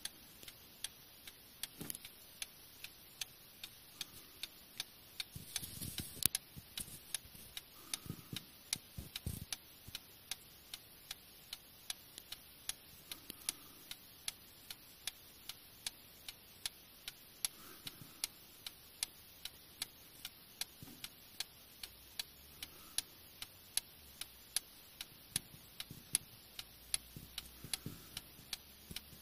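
A Vincenti Paris clock movement (1856) with front escapement and pendulum, ticking evenly at about two beats a second: the clock is running properly. A few soft low thumps come in between about five and ten seconds in.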